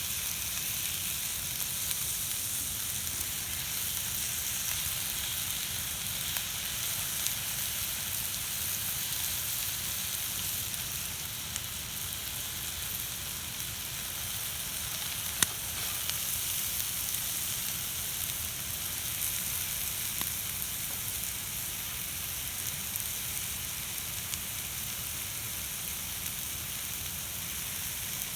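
Food sizzling steadily on a hot steel griddle plate over a wood fire, with a few sharp crackles, the loudest about halfway through.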